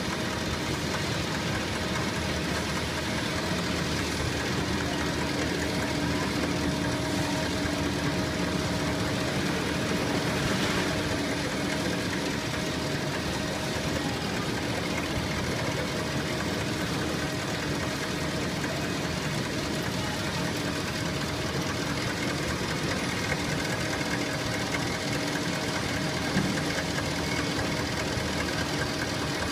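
Four-row biscuit sandwiching machine running steadily: continuous mechanical clatter from its conveyors and feed mechanism over a faint steady hum.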